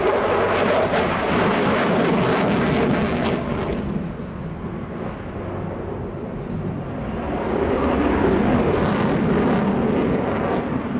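F-16 Fighting Falcon jet engine noise as the fighter manoeuvres overhead: a deep, rough rumble with crackle. It is loudest in the first few seconds, eases a little around the middle, and swells again near the end.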